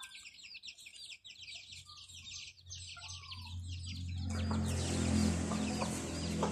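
Thai native chickens: chicks cheeping in a quick run of short, falling peeps, with a few soft clucks from a hen. About four seconds in, a low steady hum and a hiss come up underneath.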